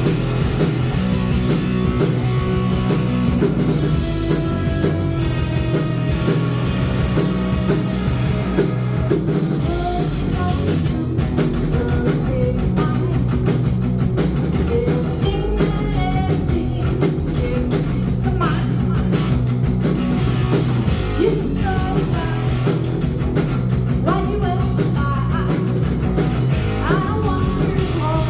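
A rock band playing live: electric guitar and drum kit, with a voice singing over it from about the middle on.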